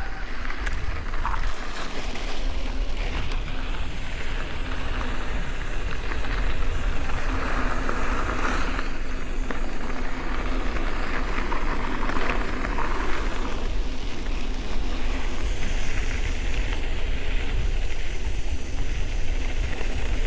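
Wind buffeting the microphone over the rumble and rattle of a mountain e-bike rolling over a dirt trail, with scattered knocks.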